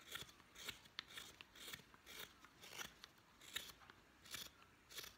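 Carving knife slicing thin shavings from a wooden spoon: a run of faint, short scraping cuts, about eight or nine of them at a fairly even pace of one every half second or so.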